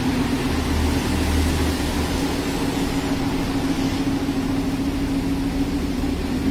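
Lamborghini Huracán Spyder's V10 engine idling steadily, a constant low hum.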